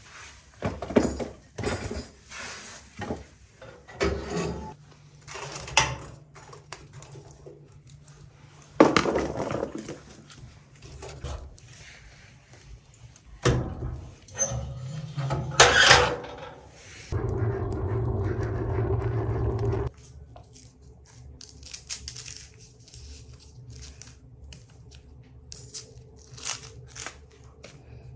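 Split firewood logs knocking and clunking against each other and the metal firebox as they are loaded into a wood-burning stove, in a series of sharp knocks. Past the middle comes a steady noise lasting about three seconds, followed by faint small clicks.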